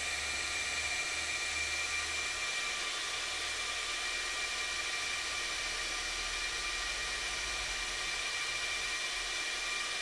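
Cooling fans of an HPE ProLiant DL120 Gen9 1U server running at speed during its power and thermal calibration at boot: a steady rushing hiss with a high-pitched whine on top.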